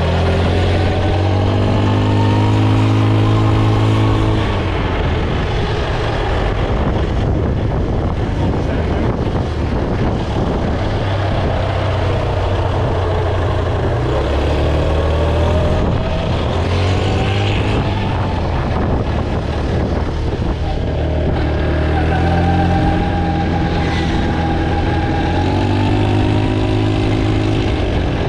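A motor vehicle's engine running under way, its pitch rising and falling several times as it speeds up and eases off, over steady road noise.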